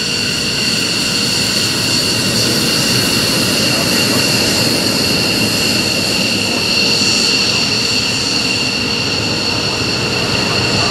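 F-15C Eagle jet engines running steadily, a high two-note whine over a rushing noise, with no rise or fall in pitch.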